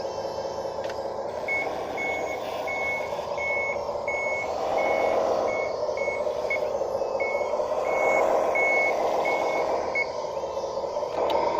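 1:12 scale model bulldozer's reversing beeper sounding a steady run of short, high beeps, about one and a half a second, which stop near the end. Underneath, its drive makes a droning mechanical sound that swells and eases a few times.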